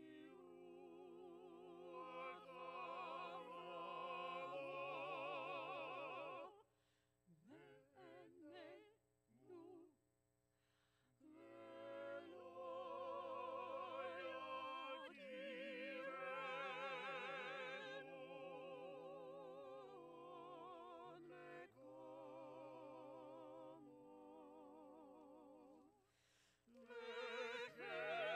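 A small mixed vocal ensemble of two women and two men singing a slow, sustained piece in close harmony, with vibrato on the held notes. The phrases break off for a few seconds about a quarter of the way in, and briefly near the end.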